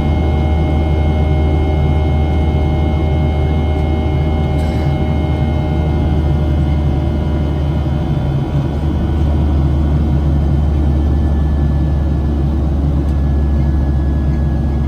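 Boeing 737-700 cabin noise: a steady low rumble from its CFM56-7B jet engines, with several steady whining tones above it, one of which slides slightly lower near the end.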